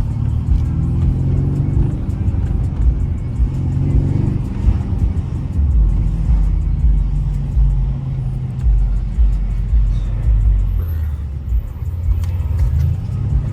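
Mercedes-AMG C63 S twin-turbo V8 running on the move, mixed with bass-heavy music.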